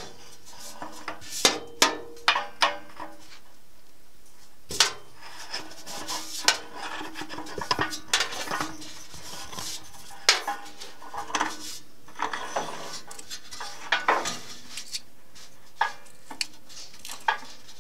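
Segmented magnesium anode rod clinking and rattling against the water heater's threaded port as it is fed down into the tank: irregular sharp metallic clinks, some in quick clusters.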